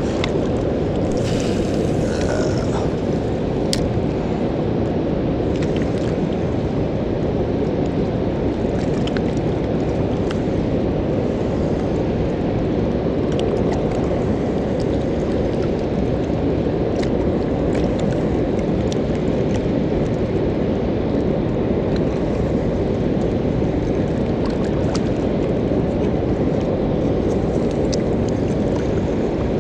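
Steady low roar of water pouring over a river spillway, with a few faint clicks over it.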